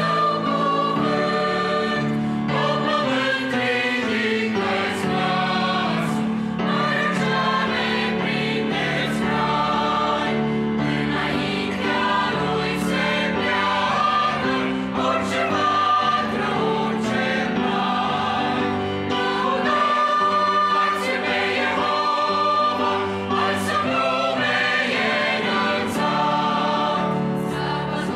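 Mixed choir of men's and women's voices singing a Romanian hymn in sustained harmony, with piano accompaniment.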